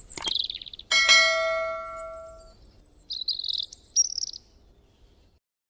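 Subscribe-button animation sound effects: a click with a short chirpy tweet, then a bell chime that rings and fades over about a second and a half, then more bird-like chirping with another click near the end.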